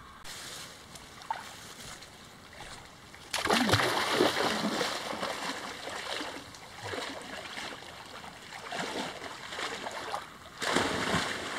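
Sea water splashing and sloshing around a person wading out into the shallows, with small waves lapping. The splashing grows loud about three seconds in, varies over the following seconds, and swells again near the end.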